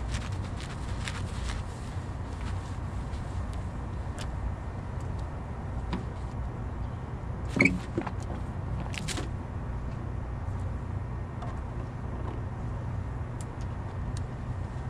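Long-handled deck brush working over a wet yacht bow, with scattered light taps over a steady low hum. A little past halfway the brush is plunged into the plastic wash bucket with a sharp knock and a brief ring.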